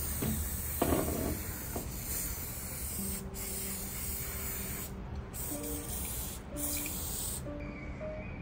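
Pump spray bottle misting cooking oil onto a non-stick metal tart pan: a hiss in several spurts with short breaks between them, stopping about a second before the end.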